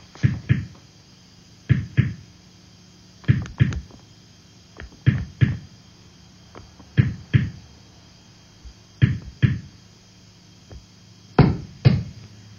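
Slow electronic beat of paired low thuds, two hits about a third of a second apart, repeating roughly every two seconds.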